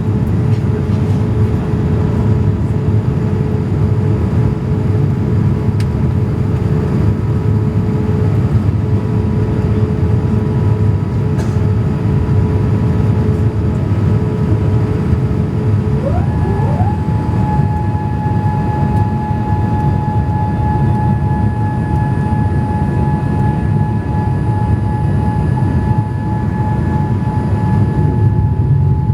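Boeing 787 cabin noise on approach: a steady low roar with a thin hydraulic whine over it. About 16 seconds in, the whine climbs quickly to a higher pitch and holds there, a noise the passenger takes to be set off by the flaps after they were deployed.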